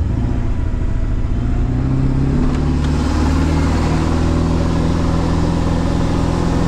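Truck engine pulling hard up a steep hill, its revs climbing over the first few seconds and then holding steady under load.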